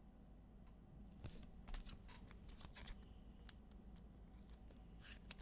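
Trading cards and packs being handled: faint scattered rustles and light clicks, one a little louder about two seconds in.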